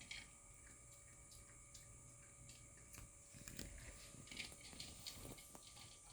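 Faint sounds of a white Shiba Inu eating: scattered small clicks and crunching, growing busier about halfway through.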